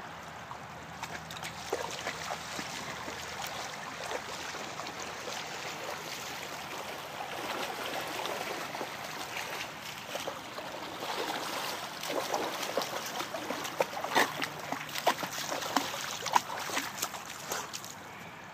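Shallow creek running over stones, with a dog splashing as it wades through the water; the splashes come thicker and louder over the second half.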